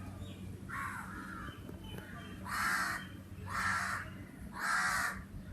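Crow cawing: one fainter caw about a second in, then three loud, harsh caws about a second apart.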